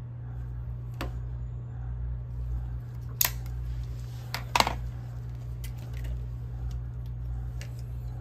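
A steady low electrical hum from the lab bench equipment, with a handful of sharp small clicks and taps from handling the test leads and instruments; the two loudest come about three seconds and four and a half seconds in.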